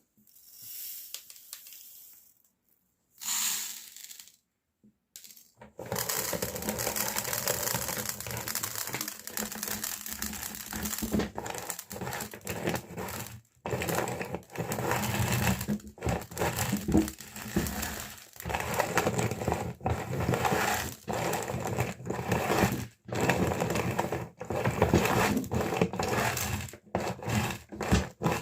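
Meat grinder crushing small candies: dense crunching and rattling from about six seconds in, broken by many short silent cuts, after a few quieter bursts with silences between them.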